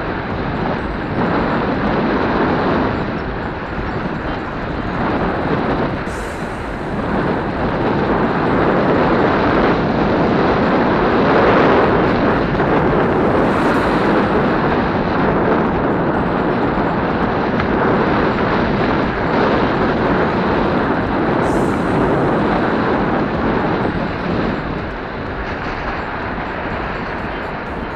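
Wind buffeting a helmet-mounted action camera's microphone on a fast downhill mountain bike ride: a loud, rushing rumble with no steady tone, swelling louder through the middle and easing near the end.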